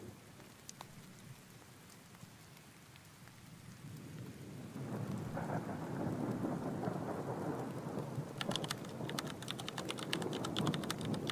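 Thunderstorm ambience: rain patters faintly, then a low rolling thunder rumble builds about halfway through, with a run of sharp crackles near the end.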